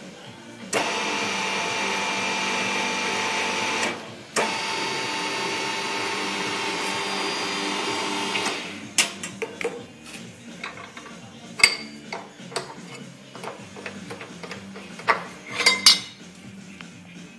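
Electric tube bender's gear motor running with a steady whine for about three seconds, stopping briefly, then running again for about four seconds as it bends a steel square tube. After it stops, sharp metal knocks and clinks as the bent tube is handled on the die.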